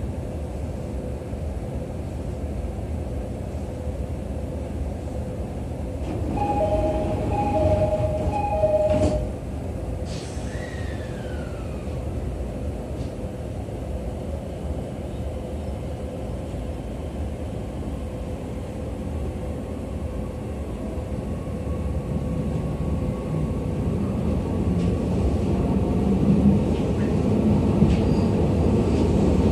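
Inside a JR East E501 series electric train car: a steady hum at a station stop, then a two-note high-low door chime sounds three times and the doors shut with a knock about nine seconds in. Toward the end the train pulls away, its running noise growing steadily louder.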